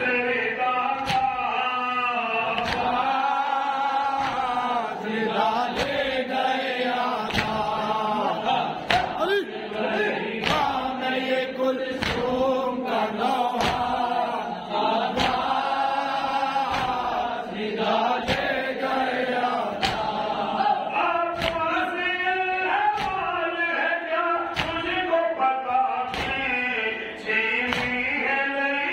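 Noha: a male reciter leads an Urdu mourning lament, and a group of men chant along with him. Under the voices runs a steady beat of sharp strikes, the chest-beating (matam) of the anjuman.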